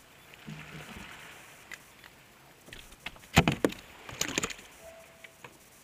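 Sharp knocks and clatter on a plastic fishing kayak, in two quick clusters: one about three seconds in, the other a second later.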